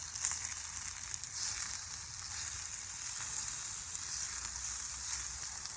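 Spam slices frying in butter in a small camp skillet: a steady sizzle with many small crackling pops.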